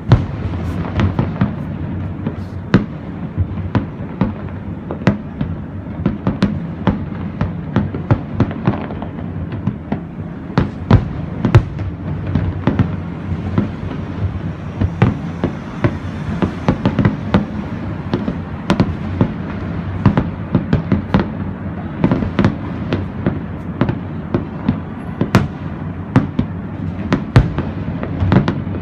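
Fireworks display going off continuously: many sharp bangs and pops, several a second, over a steady low rumble.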